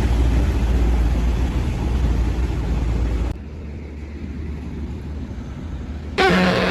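Heavy truck engine running with a deep rumble, cut off abruptly about three seconds in, leaving quieter background noise; a short pitched sound comes in near the end.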